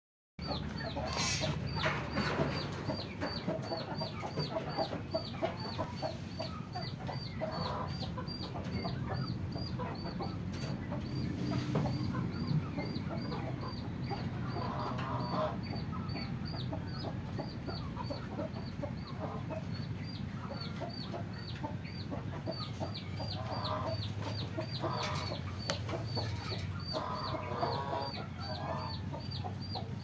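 Chickens clucking on and off, with louder bursts of calls near the middle and toward the end, over a steady high chirp repeating about three times a second.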